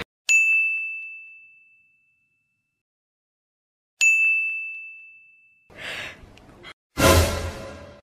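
Two bell-like 'ding' sound effects about four seconds apart, each a sharp strike with one high ringing tone that fades over a second or two. Near the end, a short swish is followed by a loud hit with a low boom that dies away.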